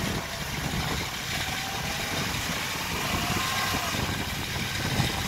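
Toyota Hilux pickup's engine running steadily under load as it is towed out of deep mud, its wheels churning through the mud.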